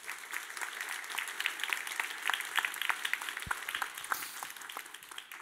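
Audience applauding: many people clapping at once. The clapping swells at the start and dies away near the end.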